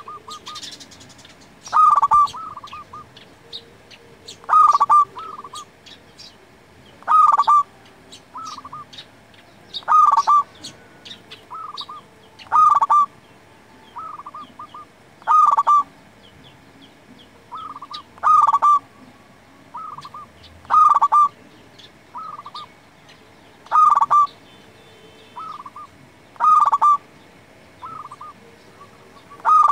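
Zebra dove (perkutut) cooing its phrase over and over, a loud first note followed by a few softer trailing notes, repeated about every two and a half to three seconds.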